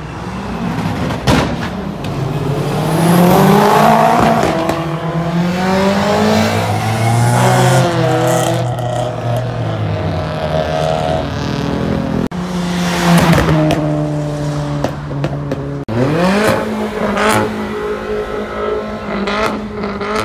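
Car engines accelerating hard past one after another, each engine note climbing and dropping through gear changes. A few sharp cracks cut through.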